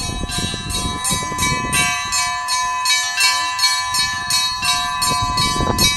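A set of church bells rung in a fast peal: small high bells struck about four to five times a second over the long ringing hum of larger bells.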